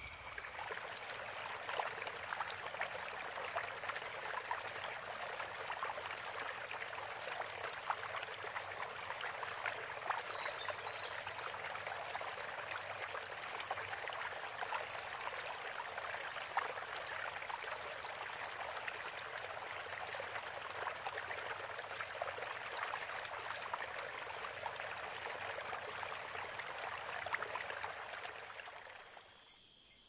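A forest stream running over stones, with frogs calling in a steady train of short high chirps, a few a second. About nine to eleven seconds in come three loud, high calls, and near the end it all fades out.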